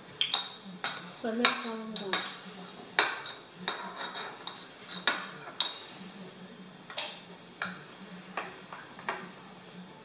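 Metal spoons clinking and scraping in small glass baby-food jars: about a dozen sharp, irregular clinks, some with a short ring.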